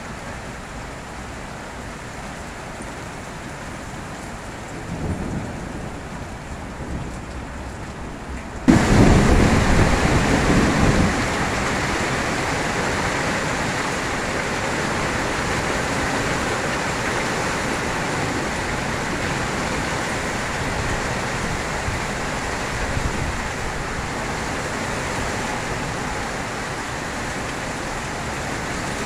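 Hail and rain pelting down steadily. About nine seconds in comes a sudden loud, low burst lasting a couple of seconds, and the downpour then runs louder.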